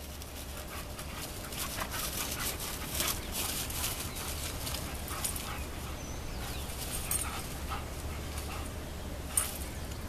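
Two dogs, one a pit bull, play-fighting on a grass lawn: scuffling, with short dog vocal sounds and a run of quick, sharp scuffs between about one and a half and four seconds in.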